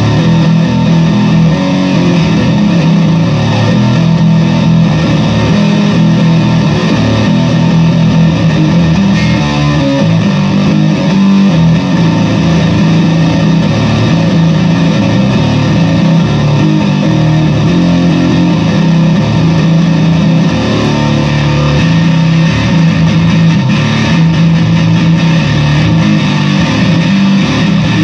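Fender Squier VI six-string bass played through a fuzz pedal: thick, distorted notes and riffs that keep going without a break, strongest in the low register.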